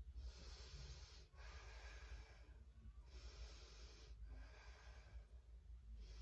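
Faint breathing of a woman holding a twisting chair yoga pose: slow breaths in and out, about five in a row, each lasting a second or more, with short pauses between.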